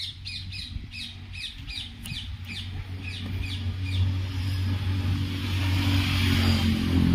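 Swaraj 855 FE tractor's three-cylinder diesel engine running at a steady idle, growing louder over the last few seconds. Birds chirp in quick short calls over the first few seconds.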